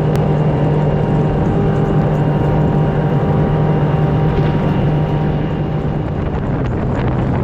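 Boat motor running at a steady pitch, with wind and water noise over it.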